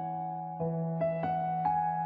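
Background music: a soft electric-piano melody, a new note about every half second over a held low note.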